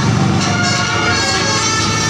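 Tour bus telolet horn, a multi-tone musical horn, playing a tune: several steady tones changing pitch every half second or so over a low engine rumble.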